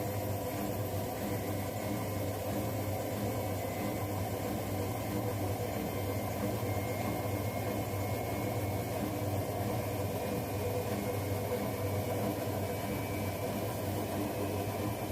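Two front-loading washing machines, an LG Centum and a Zanussi, running side by side: a steady motor and drum hum with a faint whine above it.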